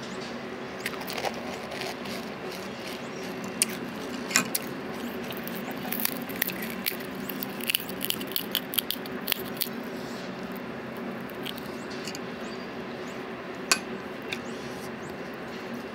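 Scattered sharp clicks and crackles over a steady low hum: crisp panipuri (golgappa) shells being cracked open and filled by hand, a steel spoon clinking against a glass bowl of pani, and crunchy chewing, thickest in the middle stretch.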